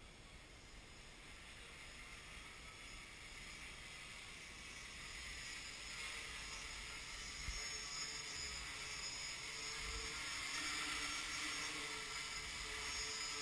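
Quadcopter's brushless motors and propellers whirring in a hover, faint at first and growing steadily louder as it comes closer, with a steady hum joining in about halfway through.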